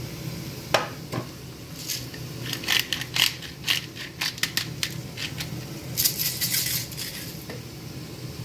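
Hand-twisted pepper mill grinding pepper over a pot: a run of crisp, crunchy clicks about three to four a second, then a denser burst of grinding near the end.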